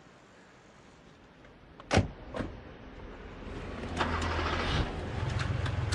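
Car door shutting with a thump about two seconds in, followed by a second lighter knock, then a car engine starting and running with a steady low hum.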